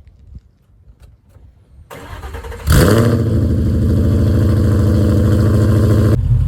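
A 2011 Ford Mustang GT's 5.0 V8, fitted with headers and an MBRP race exhaust, cold-starting: a brief crank about two seconds in, then it catches with a loud flare and settles into a loud, steady high idle.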